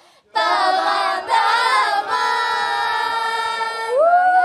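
Several young women singing together a cappella into microphones: a short phrase that starts suddenly, settles into a long held note, then moves to new, rising notes near the end.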